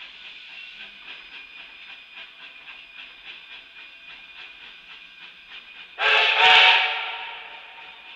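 A narrow-gauge steam train rolls along with a steady low clatter and faint rhythmic clicking. About six seconds in, the locomotive's steam whistle gives one loud blast of about a second, which then dies away with a ringing tail.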